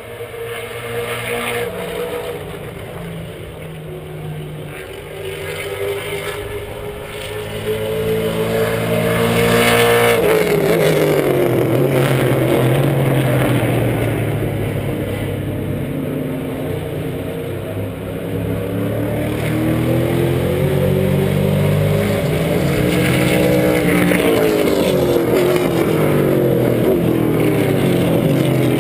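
A field of Trans Am race cars, mostly V8 Corvettes and Camaros, running at racing speed. Their engine notes climb to a peak about ten seconds in, then fall sharply as the cars pass and brake hard and downshift at the end of the back straight, with a second rise and drop near the end as more cars come through.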